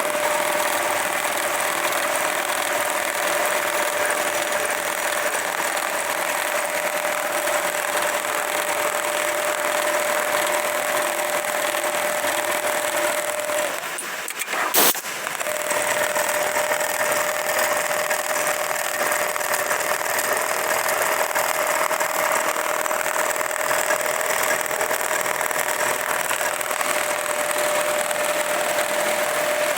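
Lanmax LM 1390G-HL programmable pattern sewing machine running, a steady mechanical clatter with a constant whine. About halfway through it stops briefly, gives one sharp click, and starts running again.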